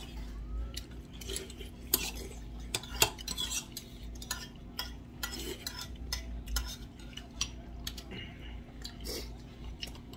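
Metal spoon clinking and scraping against a small stainless steel bowl as food is scooped and eaten: a string of irregular light clicks over a low steady hum.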